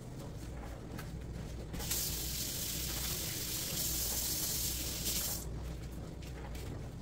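A steady, high hiss begins about two seconds in and stops abruptly about three and a half seconds later, over a constant low hum.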